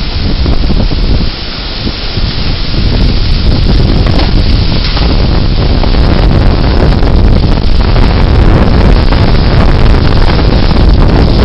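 Severe thunderstorm winds gusting hard and buffeting the microphone, a loud, unbroken rush of noise that eases briefly about a second in, then builds again.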